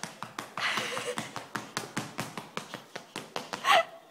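A toddler's shoes tapping and stamping on a tile floor in a quick, even run of about five taps a second as she dances, with a brief high squeal near the end, the loudest moment.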